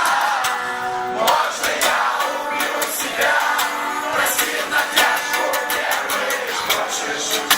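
Live band music with a sung vocal line and steady drum hits, heard through a room's crowd noise.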